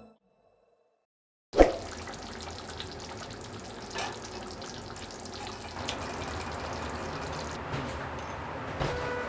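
About a second and a half in, a single knock, then a steady watery hiss with scattered small clicks: chicken curry simmering in a pan, with a spoon working through the food.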